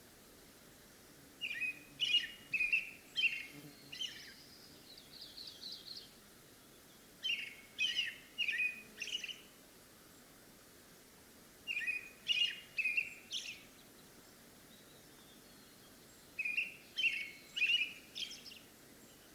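A songbird singing a short phrase of four or five quick, sharp notes, repeated four times with pauses of a few seconds between phrases; the first phrase runs on into a higher trill.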